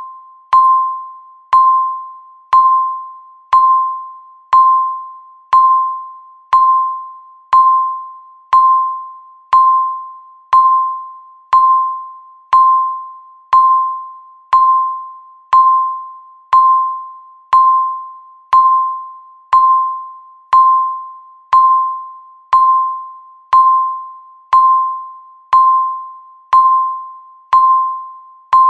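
Countdown timer beeping once every second: a short, single-pitched electronic beep that starts sharply and fades away, repeating at an even pace.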